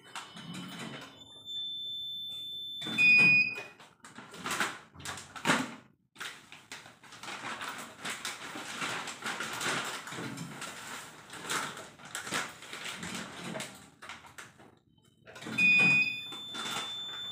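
Electronic beeps from a batter filling machine, a steady high tone about 3 seconds in and again near the end, each after fainter higher tones, among irregular rustling and crinkling of plastic pouches handled under the filling nozzle.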